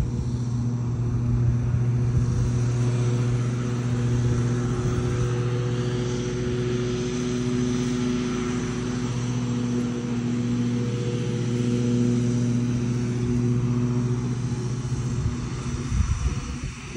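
A motor running steadily: a low hum with a rushing noise over it, rising and falling a little in level.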